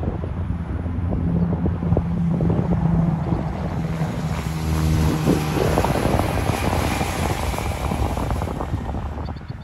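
Semi tractor-trailer passing on the highway: steady diesel engine drone and tyre noise, with a low engine tone that is strongest around the middle.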